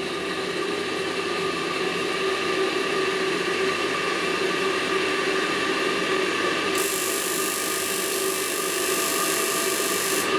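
Stripped-down Ideal Isar 24 gas boiler running its ignition sequence: a steady mechanical hum, joined about seven seconds in by a high hiss that cuts off abruptly some three seconds later.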